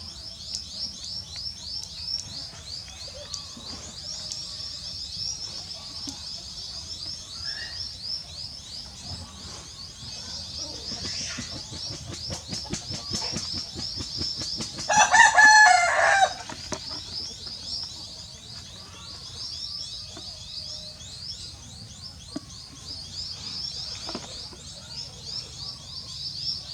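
A steady, fast, high-pitched chirping runs throughout. About halfway through, a loud drawn-out call with a wavering pitch lasts about a second and a half.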